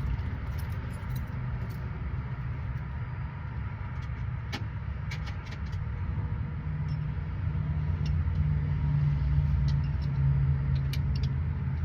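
A steady low engine-like rumble, a pitched hum in it growing stronger about seven seconds in, with a few scattered sharp metallic clicks from work on the machine.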